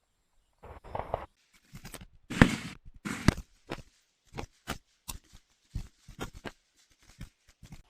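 An irregular series of sharp knocks and clicks, some with a brief rushing smear after them, the loudest two about two and a half and three and a half seconds in.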